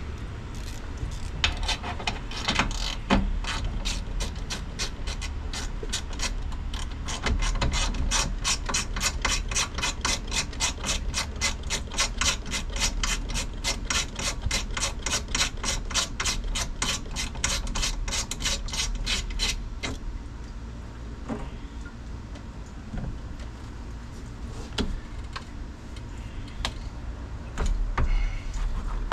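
Ratchet wrench clicking steadily, several clicks a second, as a 13 mm radiator mounting bolt is turned; the clicking stops about two-thirds of the way through, and a few scattered clicks and knocks follow.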